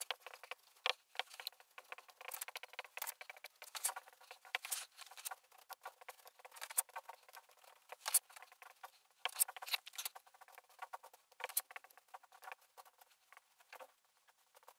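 Whiteboard marker writing on a whiteboard: faint, irregular scratches and taps of the pen strokes, stopping for a moment near the end.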